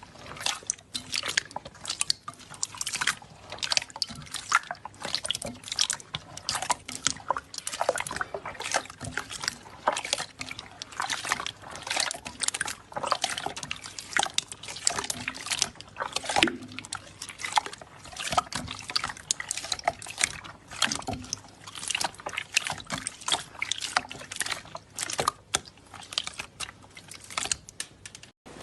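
Slime being squeezed and pressed by hand: a dense, irregular run of wet clicks, squelches and small air pops, several a second.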